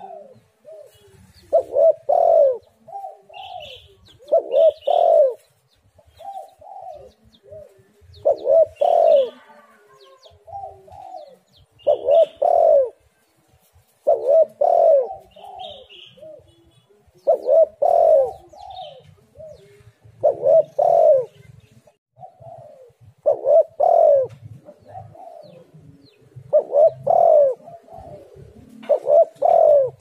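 Spotted dove cooing: a phrase of several coos repeated about every three seconds, with faint high chirps between the phrases.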